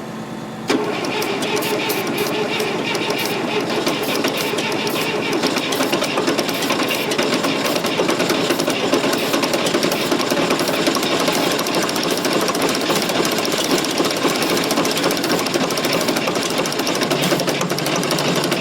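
Fordson Super Major's four-cylinder 3.6-litre diesel being cranked over on the starter, a fast, steady chugging rhythm that starts about a second in. It keeps turning over without catching.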